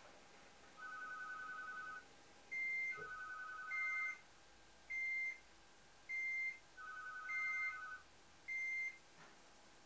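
Electronic alert sounds: a trilling two-tone ring comes in three bursts about a second long, overlapped by a separate high beep that repeats about every 1.2 seconds, six times.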